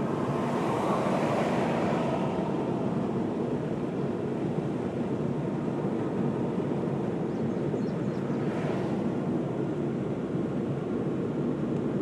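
Steady road and engine noise of a car driving on the highway. A louder swell of hiss comes in the first couple of seconds, and another short hiss comes about three-quarters of the way through.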